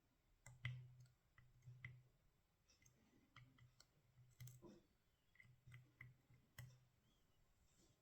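Faint, irregular small metallic clicks, about a dozen, as a pick pushes the pins of a tubular hex-core lock one at a time.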